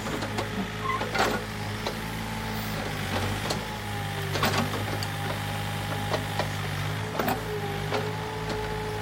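Kobelco SK013 mini excavator's three-cylinder diesel running steadily, with a hydraulic whine that shifts in pitch as the machine works. A few knocks come through, about a second in, midway and near the end.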